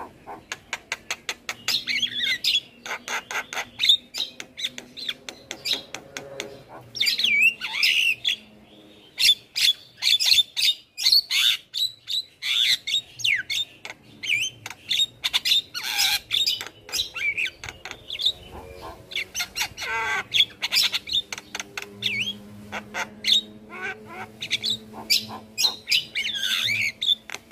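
Javan myna singing: fast runs of dry clicking notes mixed with whistled, gliding squeals and harsh squawks, broken by brief pauses.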